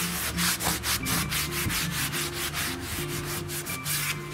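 A tightly woven cloth rubbed by hand in quick circles over an old oak door, buffing off a wax finish, with several rubbing strokes a second.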